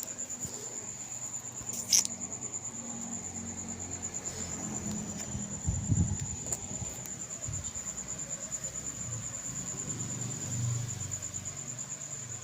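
Cricket chirping in a steady, fast-pulsing high trill. A sharp click about two seconds in, and a few low thuds around the middle.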